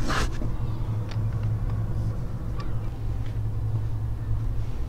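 A steady low rumble, with a short rush of noise at the start and a few faint ticks.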